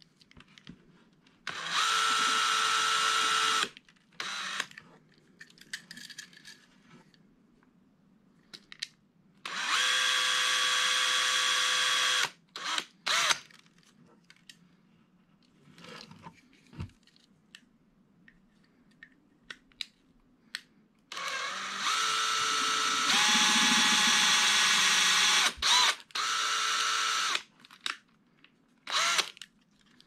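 Cordless drill with a small 5/64-inch bit drilling out the base rivet of a Hot Wheels die-cast car to take it apart. It runs in several bursts of a few seconds each at a steady whine, with short pauses and faint handling clicks between.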